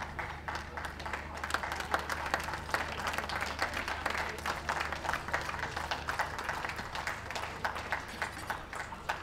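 Crowd of spectators applauding, many hands clapping steadily.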